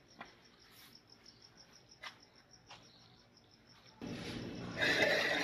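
A faint, fast, evenly paced high-pitched chirping, with a few light taps. About four seconds in, a much louder rasping noise starts and grows.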